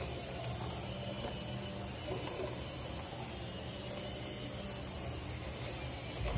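Small electric gear motors of a micro:bit tracked robot running steadily, a low hum under an even hiss.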